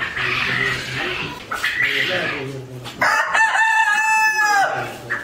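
A rooster crows once, about three seconds in: one long call lasting about a second and a half that falls off at the end.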